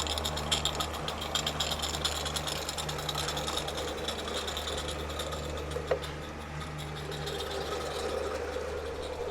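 A 16mm-scale garden railway train running along the track: a steady mechanical hum with fast, dense clicking, busiest in the first few seconds, and one sharp tick about six seconds in.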